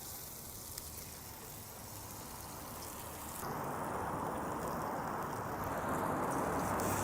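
Food sizzling on a gas griddle's stainless steel cooktop, a steady hiss that grows louder and fuller about three and a half seconds in.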